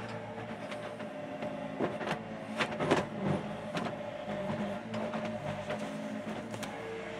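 Yanmar mini excavator's diesel engine running steadily as it digs, with sharp knocks and scrapes from the steel bucket working into rocky ground, the loudest about three seconds in.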